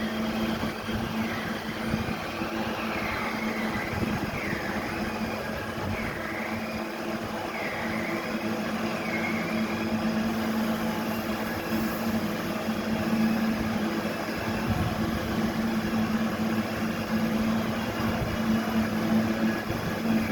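Heavy sawmill machinery running steadily with a constant hum, and a high whine that swings up and down in pitch every second or so through the first half.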